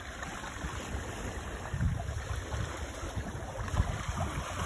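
Water rushing past the stern of a small sailboat under way, with wind buffeting the microphone in uneven gusts.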